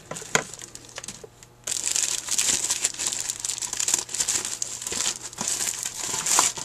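A few light clicks, then from about two seconds in a clear plastic bag of carburetor gaskets crinkling steadily as it is handled.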